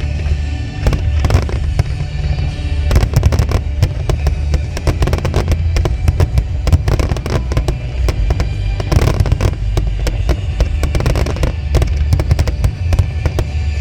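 Aerial fireworks bursting, with many sharp bangs in quick succession throughout, over music with a heavy bass.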